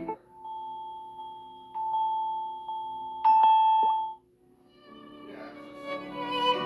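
Music: a single held high note with a few sharp plucked notes over it. After a brief pause, bowed-string (violin-like) music fades in.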